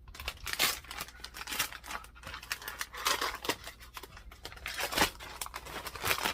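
Packaging being torn open and handled: irregular tearing and crinkling with short scraping strokes.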